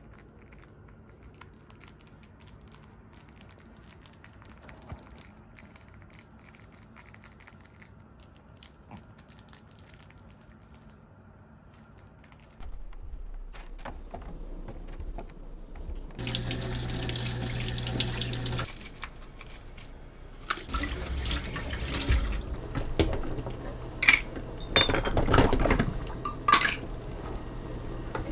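Water running from a tap into a sink in two spells, the first steady, the second uneven with knocks and clinks as things are rinsed under it. For the first dozen seconds there is only a low hum.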